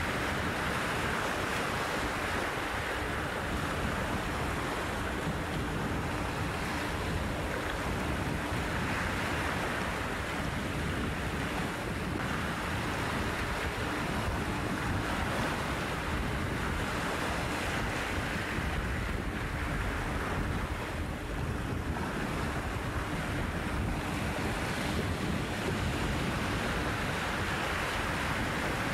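Small waves washing in over a rocky shore, a steady surf wash that swells and eases every several seconds, with wind rumbling on the microphone.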